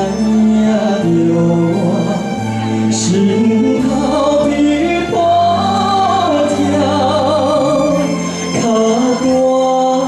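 A man singing live into a handheld microphone over an instrumental backing track, holding a note with vibrato about halfway through.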